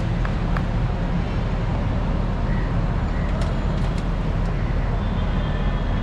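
Steady low street-traffic rumble, with a few light knife taps on a wooden cutting board as green chillies and cucumber are chopped.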